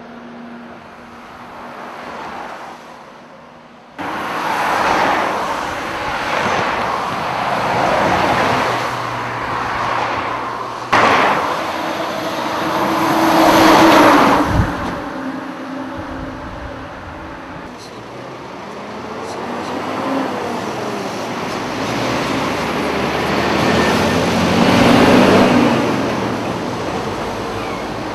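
Road traffic passing close by: cars going past one after another, the noise swelling and fading as each one goes by. It suddenly gets louder about four seconds in and is loudest about halfway through and again near the end.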